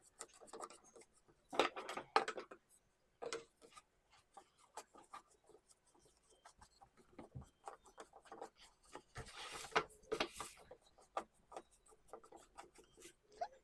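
Plant stand parts being handled and screwed together by hand: scattered light clicks and knocks, with brief rubbing or scraping sounds about two seconds in and again near ten seconds.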